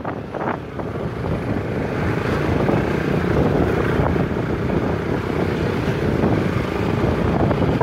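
Motorcycle running along a rough gravel road, with wind buffeting the microphone.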